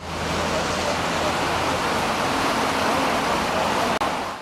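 Steady city street noise, an even hiss of traffic, with a low engine hum in the first couple of seconds.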